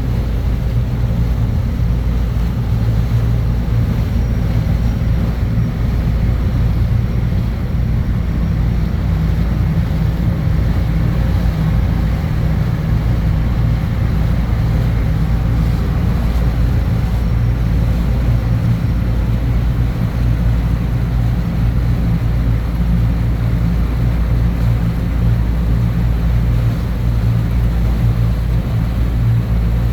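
Boat engine droning steadily at a constant speed, a low even hum with wind and water noise over it.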